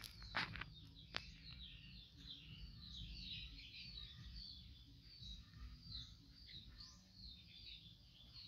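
Small birds chirping faintly in the background, a steady scatter of short high chirps. A couple of light clicks in the first second or so.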